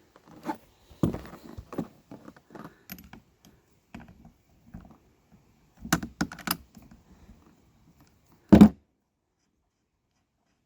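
Metal hand tools clinking and knocking against a small Poulan chainsaw as its spark plug is taken out: scattered clicks, a quick cluster of sharp clicks about six seconds in, and one louder thump a couple of seconds later.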